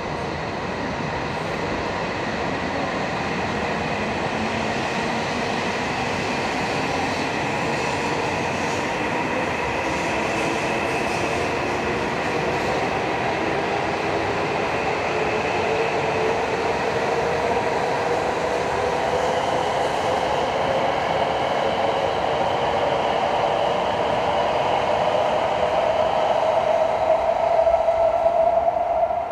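E7/W7-series Shinkansen train pulling out of the station. Its traction motor whine climbs steadily in pitch as it gathers speed, over the rumble of the wheels, and grows louder near the end as the last cars pass.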